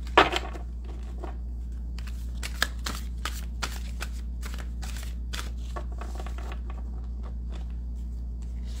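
A deck of oracle message cards being shuffled by hand: a run of light flicking clicks as the cards slide and snap together, one louder snap just at the start, over a steady low hum.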